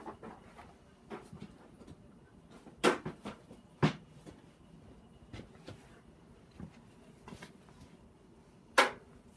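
Hand tools being handled: a few separate clacks and knocks, the loudest about three and four seconds in and one near the end, with quiet between.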